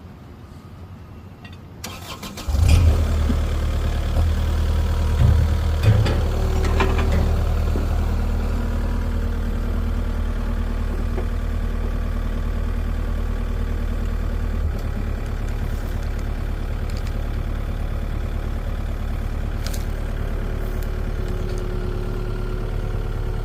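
A truck engine starts up about two and a half seconds in and then runs steadily at a fast idle, with a few short knocks and clanks over it in the first few seconds.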